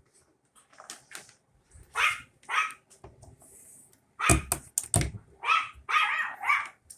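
A dog barking in short repeated barks, a couple at first and then a quicker run through the second half, set off by the vacuum sweeper, which the dog dislikes. A couple of heavy thumps come in the middle.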